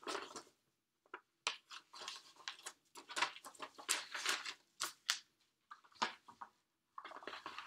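Paper and cardboard record packaging being handled: irregular rustling, sliding and scraping with light clicks as a vinyl LP's sleeves and inserts are taken out.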